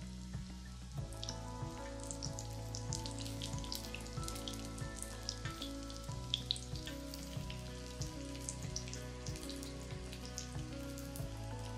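Starch-coated eggplant strips shallow-frying in oil: a steady sizzle with many small irregular crackles and pops. Background music with a steady bass line plays throughout.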